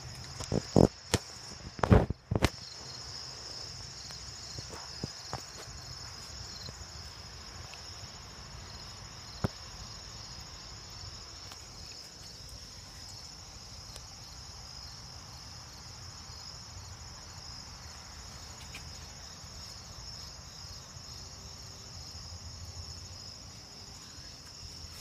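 Night chorus of crickets, a steady high trill that carries on throughout. Several sharp knocks come in the first two seconds or so, with one more about nine seconds in.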